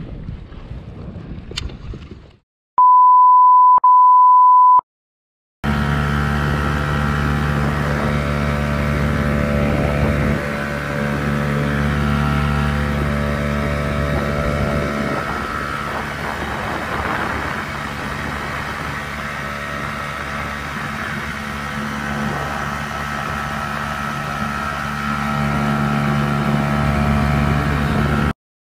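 A steady electronic beep lasting about two seconds, then the inflatable boat's outboard motor running steadily at trolling speed. The motor's pitch shifts slightly a few times and then cuts off abruptly near the end.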